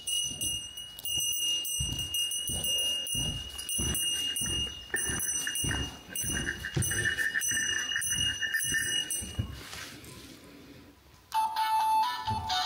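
Repeating electronic beeping jingle from a Yobikomi-kun Mini DX portable shop-promotion melody player, with a steady high tone under it. After a short lull near the end the tune changes to lower notes. Heavy thuds at walking pace run beneath it, footsteps on the debris-strewn floor.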